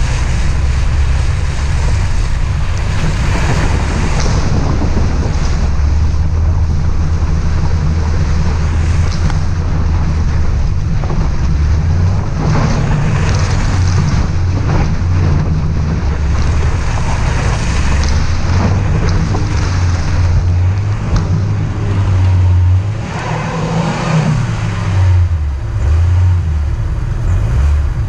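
Car engine running steadily under load while driving on a dirt trail, with rushing wind and tyre noise and scattered knocks from gravel or bumps.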